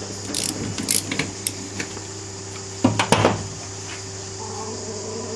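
Metal tools and engine parts clinking and knocking during the strip-down of a VW Superbug engine, with a few light clinks early and two louder knocks about three seconds in, over a steady low hum.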